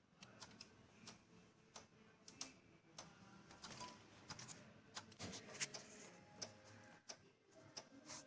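Faint, irregular clicks and light taps, several a second, growing a little louder in the second half.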